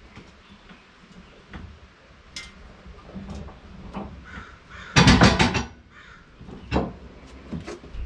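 A loud, harsh bird call about five seconds in, lasting about half a second, with a shorter call or knock near seven seconds and faint knocks from the board being handled.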